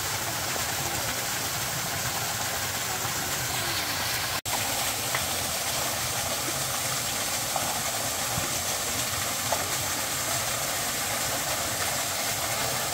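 Steady rushing hiss of water, such as rain or running water, with a momentary break about four and a half seconds in.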